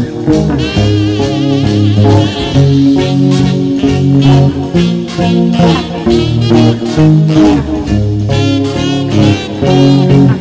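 Electric guitar, a Squier Telecaster Thinline, played along with a band backing of bass and drums at a steady beat.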